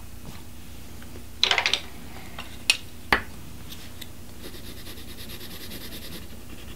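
A quick clatter of small clicks, then two single taps, as a pencil is handled, followed by the faint scratching of a black pencil shading on paper.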